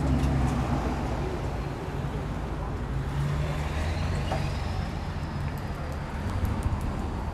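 Street traffic: vehicles driving past with a steady low engine hum and road noise.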